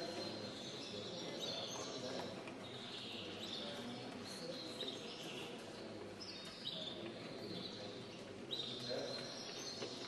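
Many caged finches and canaries chirping and twittering in quick high calls, over a steady background murmur.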